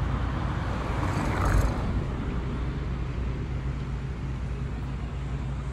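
Steady low rumble of road traffic, with one vehicle passing louder about a second and a half in.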